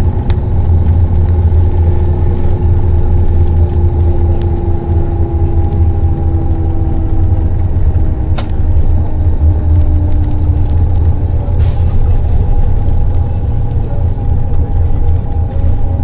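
Car cruising at motorway speed, heard from inside: a steady low road and engine rumble with a faint hum that slowly falls in pitch, and a few light clicks.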